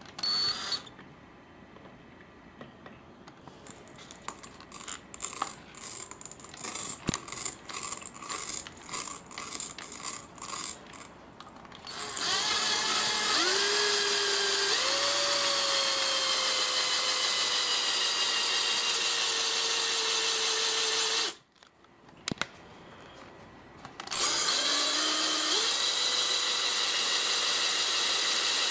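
Craftsman drill with a 1/4-inch tile bit boring through tile: the motor spins up with a rising whine and runs steadily for about nine seconds, stops suddenly, then starts up again for a few more seconds. Before the drilling there are light clicks and knocks of handling.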